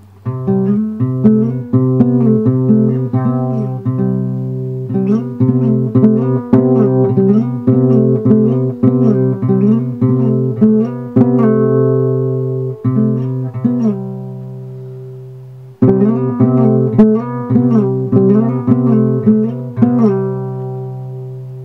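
Soundtrack music: picked guitar notes repeating over a held bass note. About two-thirds through, a note rings and fades, then the picking starts again.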